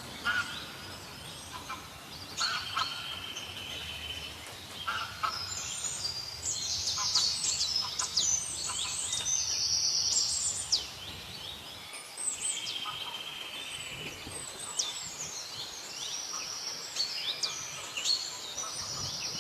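Several birds singing and calling at once: a dense chorus of quick chirps, fast sweeping notes and short held whistles that overlap throughout.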